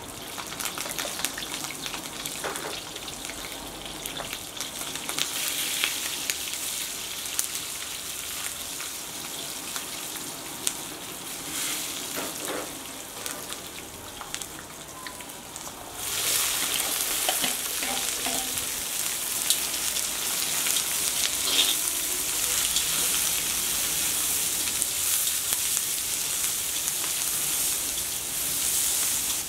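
Food frying in hot oil, a steady sizzle with scattered clicks and scrapes of a stirring utensil; about halfway through the sizzle turns abruptly louder and fuller.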